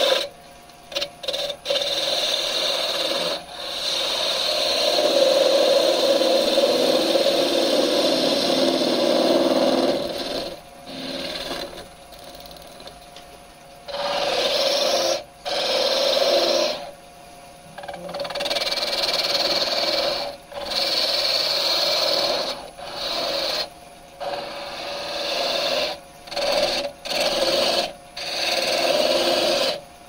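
A lathe knife cutting a spinning wooden spindle on an electric lathe, making a rasping, scraping cut. The cuts come in stretches of a few seconds with short pauses between them.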